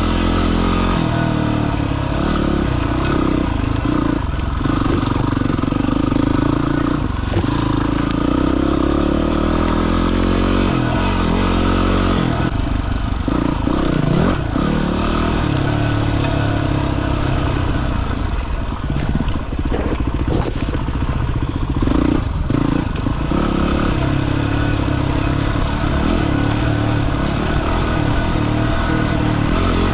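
Dirt bike engine running under load off-road, its revs rising and falling, with clattering from the bike over rough ground.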